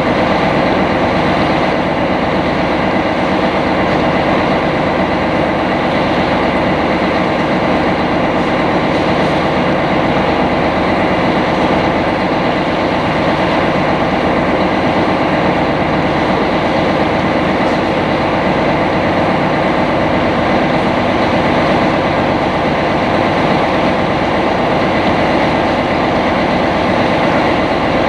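Sightseeing boat's engine running steadily while under way, a loud, even drone with a hum of steady tones over a rushing noise that does not change.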